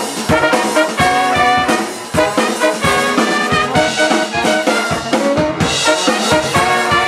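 A live brass band of trumpets, trombones and saxophones playing a funk tune together over a drum kit keeping a steady beat.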